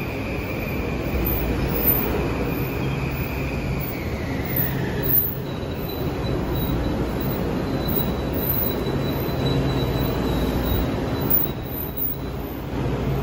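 Metro-North M8 electric multiple-unit train moving along the platform: a steady rumble of wheels on rail, with a high whine that slides down in pitch about four seconds in, then a thin, higher squeal held for several seconds.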